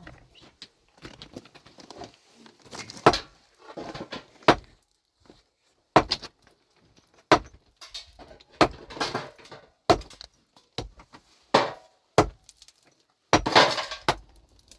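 Hard objects knocking and clattering against each other: a dozen or so sharp, irregular strikes, about one a second, some with a short ring after them.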